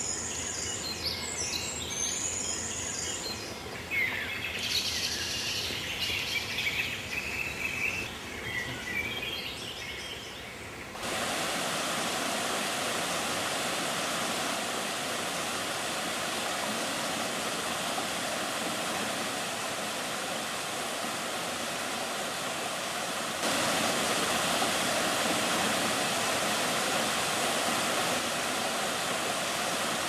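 Songbirds chirping and singing for about the first ten seconds, then the steady rushing of the Agura waterfalls cuts in suddenly and steps louder about two-thirds of the way through.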